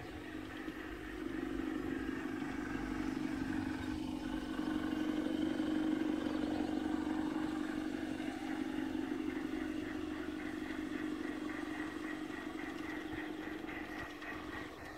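LGB garden-scale model train running on the track: a steady hum of its electric motor and gearing that grows louder over the first seconds and fades toward the end, with a light rhythmic clicking in the second half.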